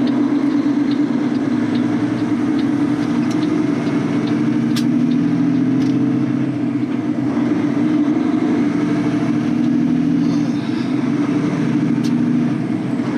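Semi truck's diesel engine and road noise droning steadily inside the cab while driving.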